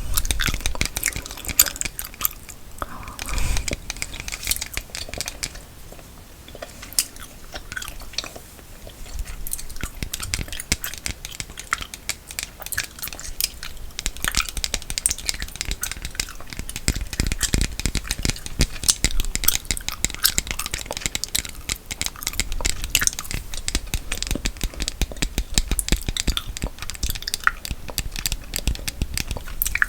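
Gum chewing close to a sensitive ASMR microphone: a dense, continuous run of wet mouth clicks and smacks, with occasional low thumps.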